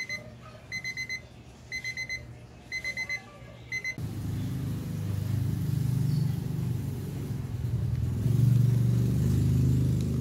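Electronic alarm beeping, high and even, in quick groups of four about once a second. About four seconds in it stops abruptly and gives way to a low rumble that grows louder.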